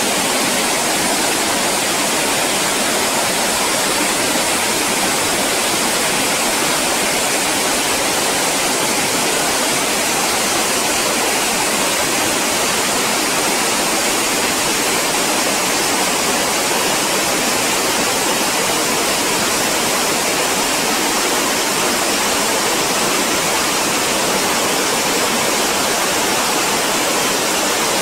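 Fast glacial meltwater river rushing and churning over boulders: a loud, steady rush of water with no let-up.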